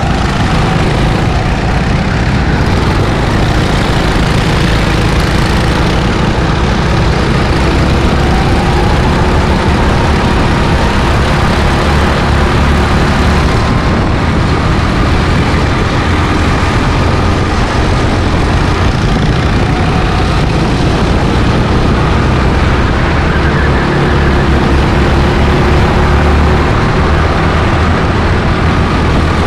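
Go-kart engines running at racing speed, heard from onboard with heavy wind rumble on the microphone, and faint engine pitches slowly rising and falling as the karts accelerate and lift through the corners.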